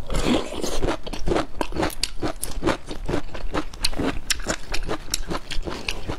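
Biting into a cooked spring bamboo shoot, then crunchy, fibrous chewing with many sharp crackles, about three or four a second.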